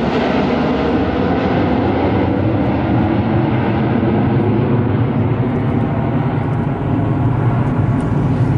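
Steady jet roar from a six-ship formation of USAF Thunderbirds F-16 fighters, a dense rumble whose treble slowly dulls as the formation flies away.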